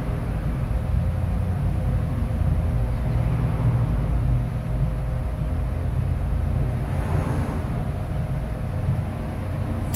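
Steady low background rumble with a faint steady hum above it, unchanging throughout.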